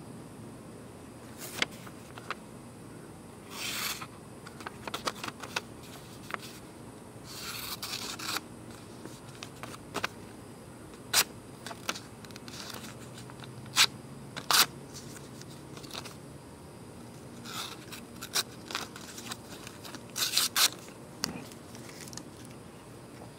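Hand work on a small Schrade OTF knife: short scraping and rubbing sounds broken by a handful of sharp clicks, a few of them fairly loud.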